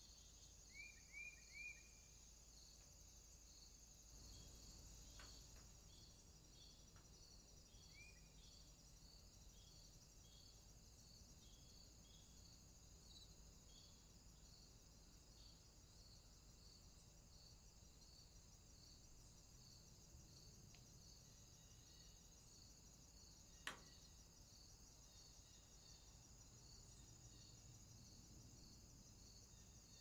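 Faint woodland ambience of insects trilling steadily, with a regular pulsing chirp throughout. Three short chirps come about a second in and one more near 8 s, and a single sharp click about 24 s in.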